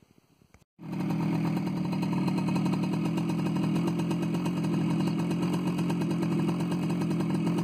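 Motorcycle engine running steadily at an even speed, starting abruptly about a second in.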